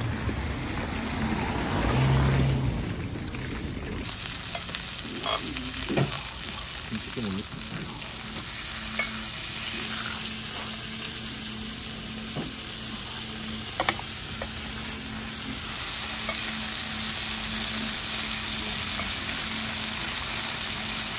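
About four seconds of low outdoor rumble, then a sudden change to slices of pork belly sizzling on a grill pan: a steady, bright frying hiss with a few small pops and clicks.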